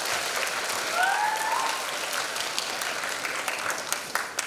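Audience applauding, a dense patter of many hands clapping, with one short rising whoop about a second in.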